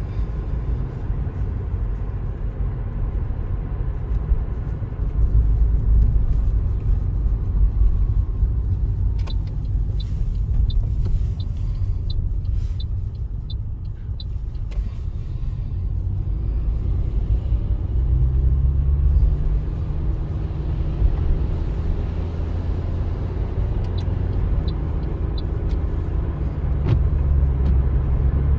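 Steady low engine and road rumble of a moving vehicle, heard from inside the cab, with the engine note firming up in the second half. Faint ticking, about two a second, runs for a few seconds midway.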